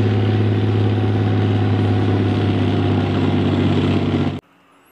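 Main battle tank's engine running with a deep, steady drone as the tracked vehicle drives along. The sound cuts off abruptly near the end.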